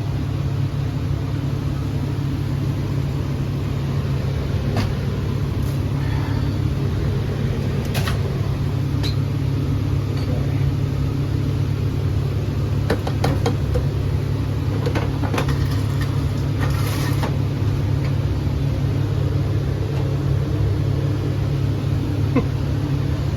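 Steady low hum of running air-conditioning equipment, with scattered light clicks and knocks of panels and tools being handled.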